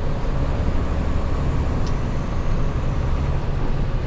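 Semi-trailer truck's diesel engine running steadily under way, a deep even drone with road and wind noise over it.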